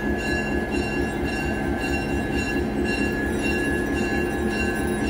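EMD GP9 diesel-electric locomotive's 16-cylinder 567 engine running at low throttle as it creeps up to a passenger car to couple: a steady pulsing rumble with a faint steady high whine over it.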